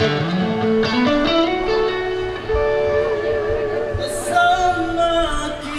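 Live rock band playing a slow song: electric guitars, bass and drums, with long sustained melody notes that slide and waver.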